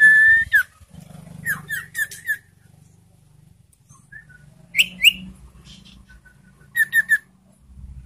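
Caged iora calling in short whistled notes: a held whistle at the start, a quick run of four falling notes, then a pair and a triplet of sharp notes in the second half.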